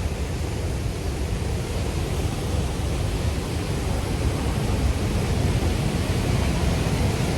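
Steady roar of Elk Falls' waterfall: an even rushing noise, heaviest in the low end, with no break.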